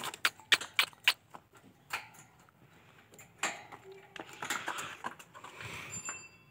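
A quick run of sharp clicks and taps, then a couple of single taps and a few seconds of rustling, as spitz puppies move about in a wire cage.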